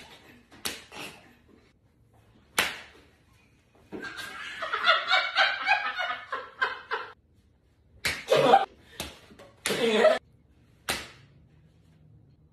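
Several sharp slaps, then about three seconds of laughter, then more loud slaps and cries near the end.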